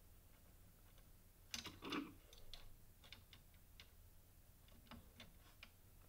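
Faint clicks and ticks of a small screwdriver and metal parts as a screw is driven in to mount a 3D printer hot end, with a cluster of louder clicks about one and a half to two and a half seconds in and lighter, sparser ticks after.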